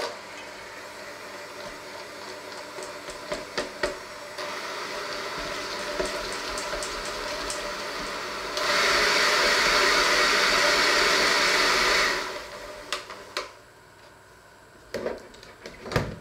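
Electric hand mixer with spiral dough hooks working flour in a stainless steel bowl: it starts with a click, steps up in speed a couple of times, runs loudest for about three seconds, then switches off. A few knocks follow as the mixer is handled and set down.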